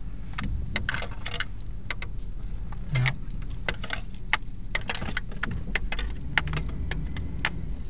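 Inside a moving car: a steady low engine and road rumble, with frequent irregular light clicks and rattles from the cabin.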